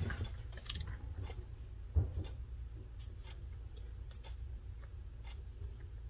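Faint, scattered small clicks and scrapes of a soldering iron tip and fingers working on a circuit board, with a soft knock about two seconds in, over a steady low hum.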